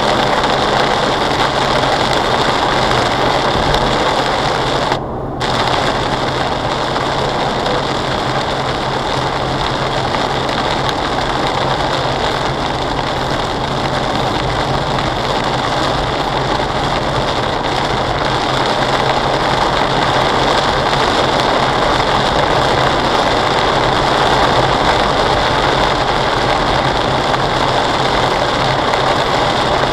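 Heavy rain beating on a car at about 48 mph, heard inside the cabin, mixed with wet-road tyre noise and a low engine hum. The sound is steady except for a brief dropout about five seconds in.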